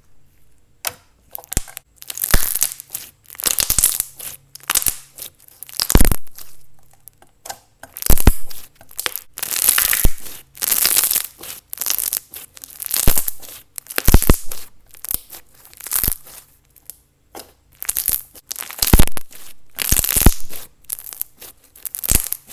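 Jelly cube strips slime being squished and pressed by hand, making irregular crunching, tearing squishes about one or two a second.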